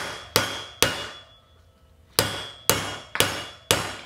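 Hammer blows on a steel 1-1/4 inch socket used as a driver, tapping a chilled new wheel bearing into the heated hub of a vintage Honda motorcycle wheel. About seven sharp metallic strikes, each ringing briefly, come in two runs with a pause of about a second and a half between them. The bearing is a tight interference fit and goes in tougher than expected.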